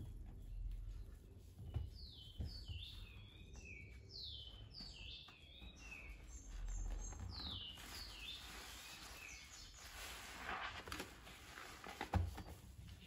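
Soapy sponges squeezed and kneaded by hand in a basin of foamy water: wet squelching, fizzing foam and splashes, loudest just before the end. Over the middle of it a bird chirps a quick run of short falling notes.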